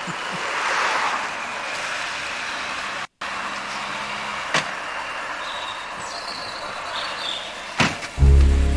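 Outdoor ambience from a camcorder's built-in microphone with a steady hiss, cut by a brief dropout about three seconds in. Near the end there is a thump, and then a car engine starts and runs with a low, steady note.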